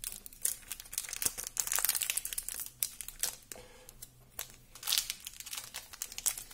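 Foil wrapper of a 1993-94 Topps Premier hockey card pack crinkling as it is handled and opened, in short irregular rustles, loudest about two seconds in and again about five seconds in.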